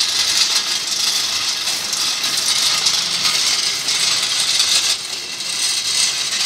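Homemade friction stir welding machine running with a steady, rattling mechanical noise while its vise carriage is hand-cranked along the feed screw. The noise dips slightly about five seconds in.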